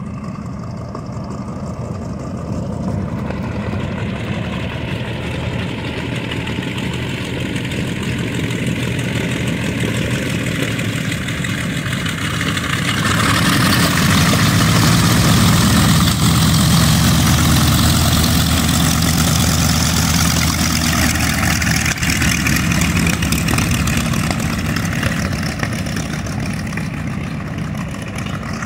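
The twin Wright R-2600 radial engines of a B-25 Mitchell bomber running at taxi power, growing louder as the aircraft approaches and loudest about halfway through, then easing off as it turns away. A loud rushing hiss joins the engine sound from about halfway through.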